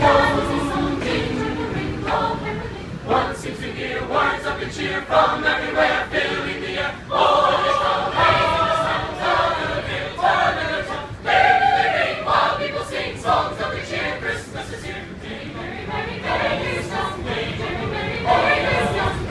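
A mixed choir of men's and women's voices singing a cappella, many voices together, inside a commuter railcar.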